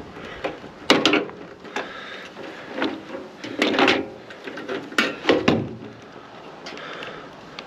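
Irregular knocks, clanks and scrapes of a microwave oven's metal casing and parts being taken apart for scrap, loudest about a second in and again around four to five seconds in.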